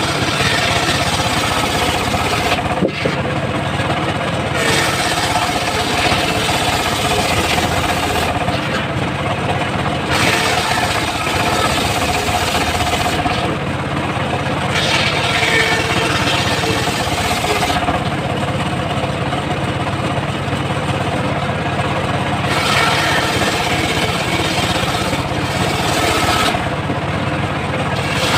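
Engine-driven homemade circular saw running steadily while its blade rips through teak. A higher cutting hiss rides over the engine and drops away for a few seconds several times, longest about two thirds of the way through, as the blade comes free of the wood between passes.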